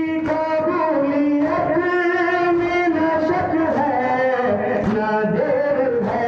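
A man's voice singing a slow Urdu noha (Shia lament for Hussain), holding long notes that slide from one pitch to the next.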